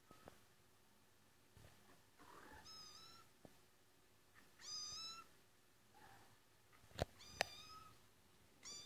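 A cat meowing repeatedly, high-pitched, from a recording played through a smartphone's small speaker, about four short meows. Two sharp taps about a second before the end are the loudest sounds.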